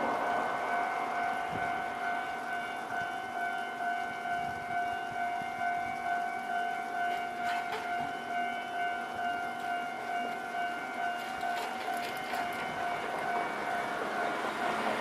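Japanese level-crossing warning bell ringing, an electronic two-tone ding repeating about twice a second.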